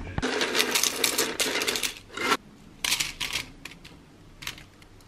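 Dry cereal flakes pouring from a dispenser into a bowl: a dense rattling patter of small clicks for about two seconds. A few separate clicks follow as single pieces drop.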